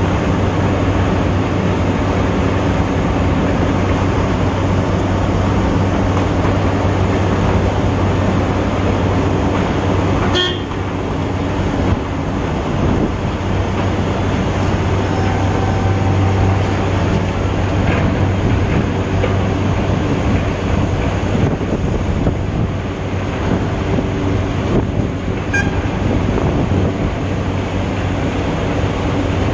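Sugarcane-unloading crane and cane feeder table running: a loud, steady machinery drone with a constant low hum. A sharp clank comes about a third of the way in, and a short horn toot around the middle.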